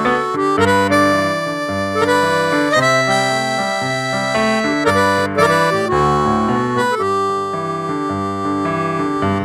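Yamaha CP-4 Stage keyboard playing a harmonica voice: a melody of held notes and chords.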